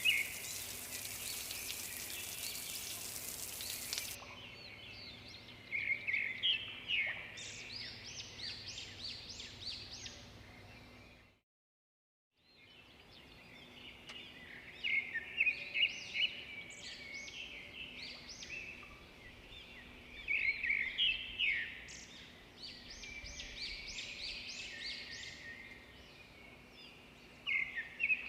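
Songbirds singing in bursts of quick, bright chirping phrases that repeat every few seconds. A steady hiss sits under them for the first few seconds, and the sound cuts out completely for about a second near the middle.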